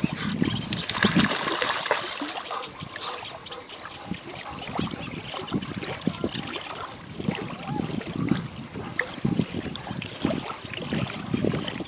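Shallow lake water sloshing and splashing in irregular strokes as a Rottweiler wades through it.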